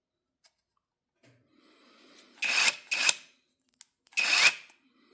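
Hyper Tough cordless brushless impact wrench run in short trigger pulls: a faint low whir, then three loud bursts of whirring with a steady high tone in the second half, two close together and one about a second later.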